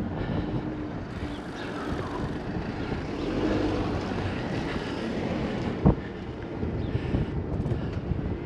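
Wind blowing across the microphone while riding a bicycle, with road and riding noise underneath and one sharp knock about six seconds in.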